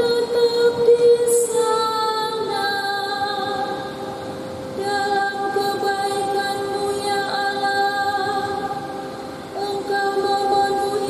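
A woman's solo voice singing the refrain of a responsorial psalm in Indonesian, in long held notes with short breaks between phrases.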